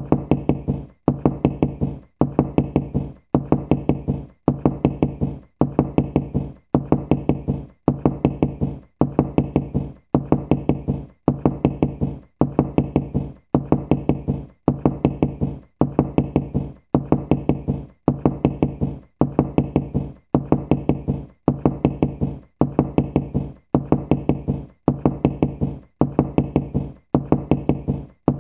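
Knocking in quick runs of several knocks each, repeating evenly about once a second, as a looped knocking sound effect.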